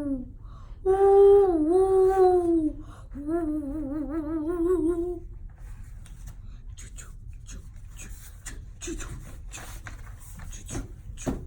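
A person's voice imitating the howling wind of a snowstorm: long, wordless hooting calls that swoop up and down in pitch, the last one wobbling rapidly. The voice stops about five seconds in, and only faint rustling and light clicks follow.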